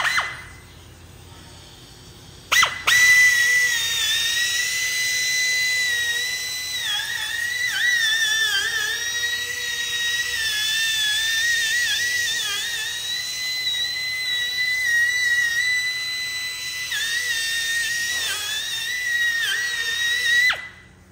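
Small die grinder with a carbide chamfering bit spinning at a high, steady whine, its pitch dipping and wavering each time the bit bites into the edge of a steel bore to cut a small chamfer. It starts sharply a couple of seconds in and stops just before the end.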